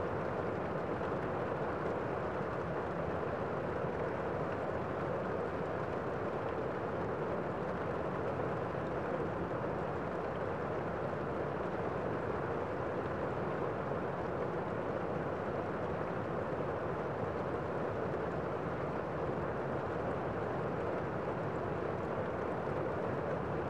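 Steady rain as one dense, dull hiss with no separate drops, unchanging throughout.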